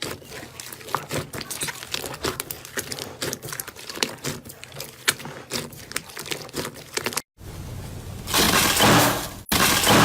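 Crunchy ASMR material being squeezed and pressed close to the microphone, giving many small crackles and pops. After a cut about seven seconds in comes a much louder, denser crunching.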